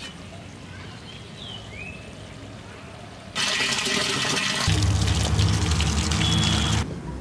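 Water pouring in a steady stream from a bamboo spout, starting suddenly about halfway in, turning fuller and deeper a second later, then cutting off abruptly near the end.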